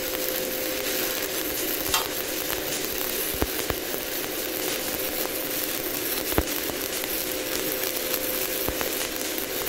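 Shielded metal arc (stick) welding overhead at about 110 amps: the electrode's arc crackles and sizzles steadily, with a few sharp pops and a steady hum underneath.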